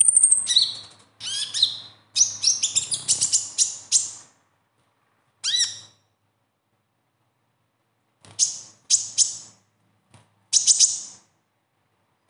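Male Van Hasselt's sunbird (konin, 'kolibri ninja') singing its fast, chattering besetan song: a thin high whistle, then bursts of rapid, sharp high chirps broken by pauses of a second or two.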